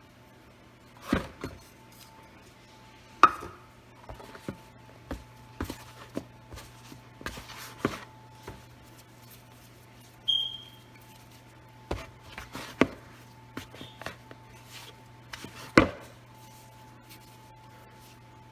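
Wet hands pinching off and shaping sticky bread dough in a plastic tub: irregular soft slaps, squelches and knocks, the loudest about three seconds in and again near the end. A steady low hum runs underneath.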